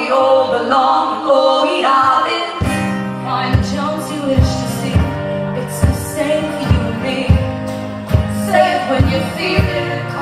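Live band music: a long sung note held over the instruments, then from about two and a half seconds in a steady beat of low thumps drives the song on under the guitars and voices.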